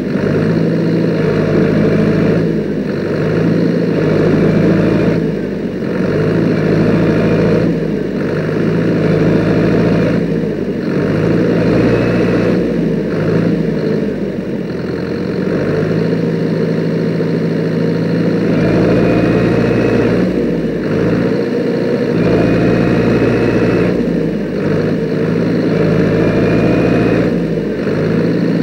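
Homemade tractor's engine running under load while the tractor is stuck in mud, its revs rising and dipping every few seconds as it works to drive out. A short high rising squeak comes now and then.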